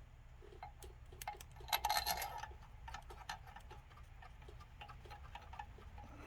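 Ratchet wrench clicking steadily, about four clicks a second, as oiled cylinder-head bolts are run down before torquing, with a brief louder metal clatter about two seconds in.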